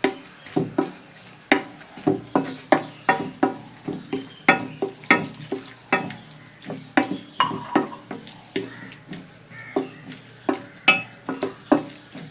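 A spoon stirring bitter gourd curry in a pan, knocking and scraping against the pan about two to three times a second in an uneven rhythm, over a light sizzle.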